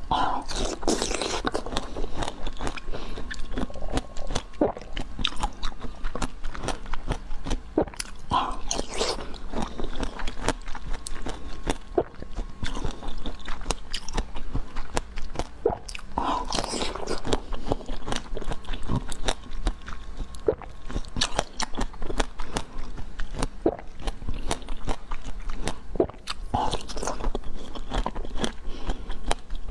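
Close-miked eating: crunchy biting and chewing of sweets, with a louder bite every eight to ten seconds or so, about four times, and crackly chewing in between.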